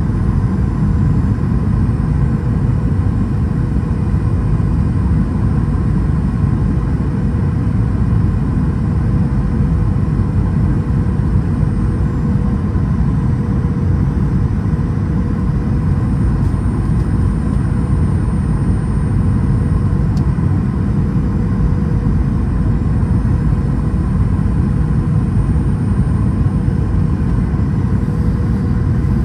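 Airliner cabin noise of a Boeing 737-800 in flight: a steady low rumble of its CFM56-7B engines and airflow, with a thin steady hum over it.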